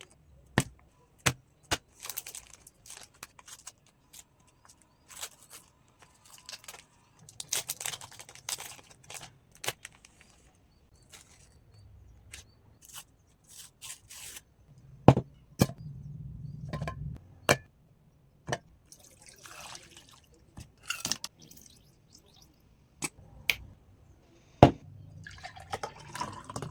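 Kitchen preparation sounds for making a milkshake: many sharp clicks and knocks of utensils and containers, between stretches of hissy noise and liquid being poured.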